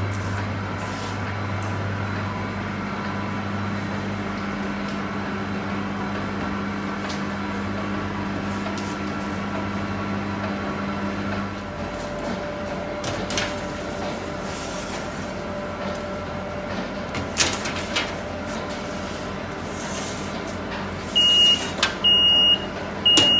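Steady hum of bakery machinery, with metal baking trays sliding and clanking into a commercial oven in the second half. Near the end the oven's electronic control panel beeps in short high beeps, repeated about once a second.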